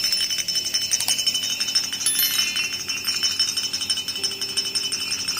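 Rapid, continuous metallic jingling and rattling, as of small bells or a jingle rattle being shaken.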